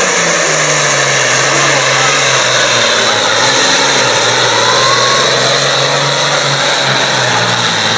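Diesel engine of a super farm class pulling tractor running at full throttle under heavy load as it drags a weight-transfer sled, a loud steady engine note.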